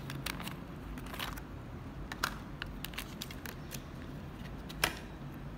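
Scattered clicks and crinkles of a clear plastic case and a small bus model being handled, with one sharper click near the end.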